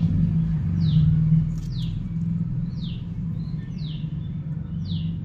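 A bird repeating a short falling chirp about once a second, over a steady low hum.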